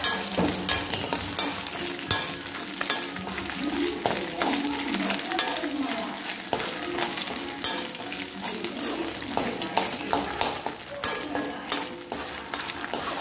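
Scrambled egg frying in oil in a black kadai, sizzling, while a metal spatula stirs it and scrapes against the pan in frequent short strokes as chili powder is mixed in.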